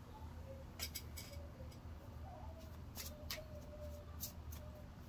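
Tarot cards being handled and shuffled: a scatter of short, crisp card snaps and flicks, a few about a second in and more from about three seconds on, over a low steady hum.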